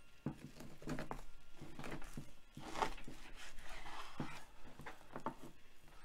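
Chef's knife sawing through a slab of raw beef chuck eye, with a few sharp knocks as the blade reaches the plastic cutting board.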